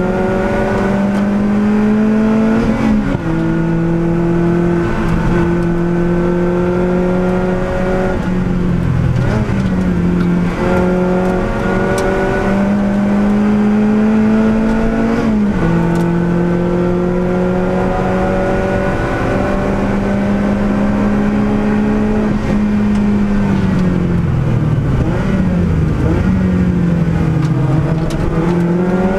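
Lotus Elise Cup R S3 race car's engine heard from inside the cockpit under hard acceleration, its pitch climbing slowly through each gear and dropping at each gear change. Twice the revs dip and then build again.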